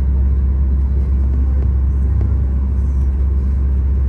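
Steady low rumble heard inside the cabin of a Boeing 737 MAX 8 on the ground, an unbroken even drone with no distinct events.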